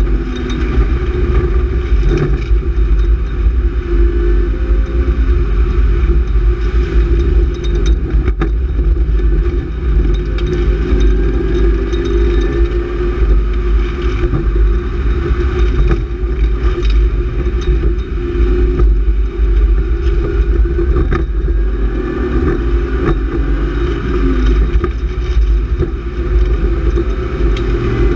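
BMW E36 328is's 2.8-litre straight-six running hard on track, heard from inside the cabin, its pitch rising and falling with throttle and gear changes over a constant low road rumble.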